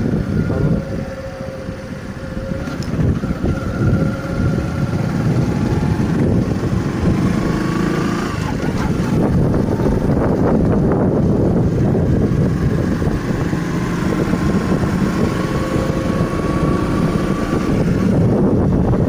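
Steady rumble of a vehicle riding along the road, engine and road noise mixed with wind, with faint held tones coming and going.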